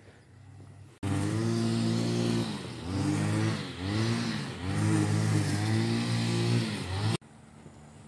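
A motor vehicle's engine running with its pitch rising and falling about once a second. It cuts in suddenly about a second in and cuts off abruptly near the end.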